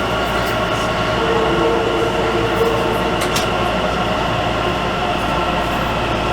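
LIRR M9 electric train heard from inside a passenger car while running: a steady hum of several fixed tones over a low rumble, with a brief extra tone rising out of it about a second in.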